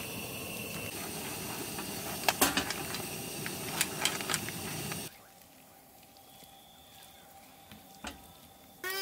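Camp cooking: a steady hiss with several sharp clinks of utensils. It cuts off abruptly about five seconds in to a much quieter stretch with a single click, and right at the end a child starts crying.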